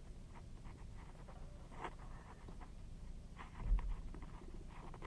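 Faint handling noises: scattered small clicks and scratches, with one low bump about three and a half seconds in.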